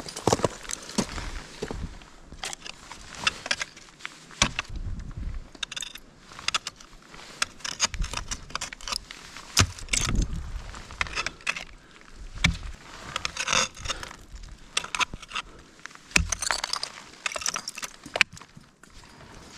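Footsteps with metal climbing gear clinking and jangling, in irregular clicks and thuds.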